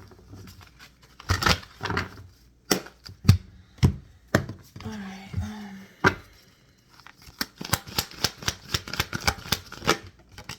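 Tarot cards being handled: a series of sharp slaps and clicks as cards are shuffled and set down, then a fast run of rapid clicking in the last few seconds.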